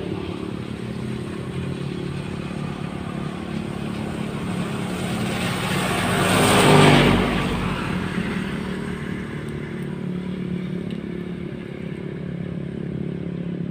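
A passing motor vehicle over a steady low engine-and-traffic hum: the vehicle swells to a peak about six to seven seconds in and fades away again.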